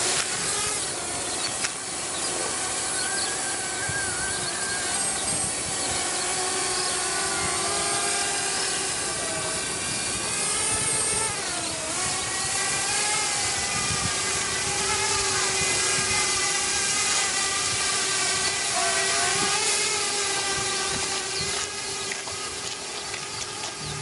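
Parrot Bebop quadcopter's four motors and propellers whining: several pitched tones that rise and fall together as the throttle changes, dipping sharply and climbing back about halfway through.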